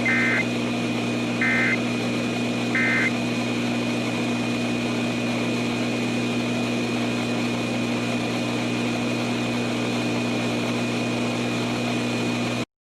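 Three short bursts of EAS SAME data tones, the End of Message signal, about a second and a half apart. Under them is a steady hum and hiss of radio static, which cuts off abruptly near the end.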